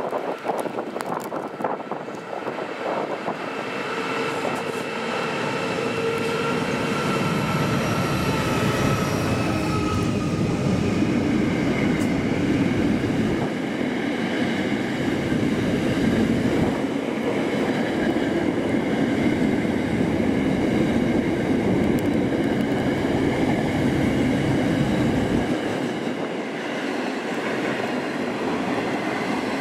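Freight train passing, its wagons rolling steadily along the rails; it grows louder over the first several seconds, with a thin steady whine through roughly the first ten seconds.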